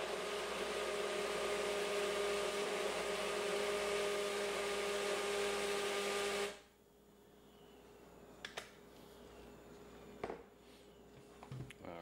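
A GNC personal bullet-style blender's motor runs steadily, blending an ice cream, milk and Oreo shake, then cuts off abruptly about six and a half seconds in. After that come a few short clicks and knocks as the cup is taken off the motor base.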